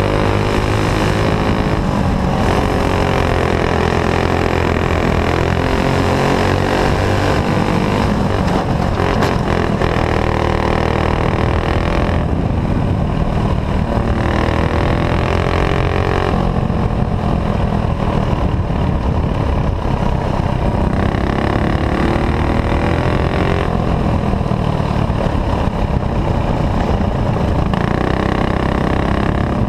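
Four-stroke single-cylinder clone kart engine racing at full throttle, heard from on board. Its pitch rises and falls every few seconds as the driver comes on and off the throttle around the oval.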